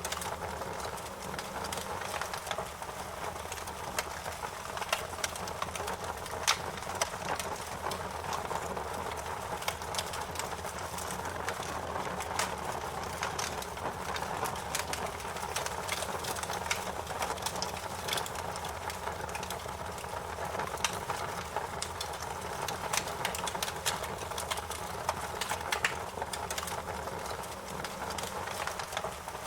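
Wood fire burning with a steady rush of flames and irregular sharp crackles and pops.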